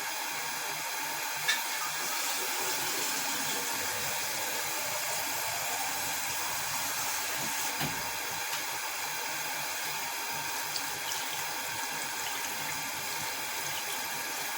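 Electric kettle heating water: a steady rushing hiss that stays even throughout.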